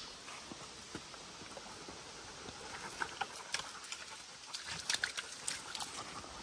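Footsteps of hikers and a dog on a forest trail and wooden boardwalk planks: soft scuffs and light knocks, more frequent in the second half, with the dog panting.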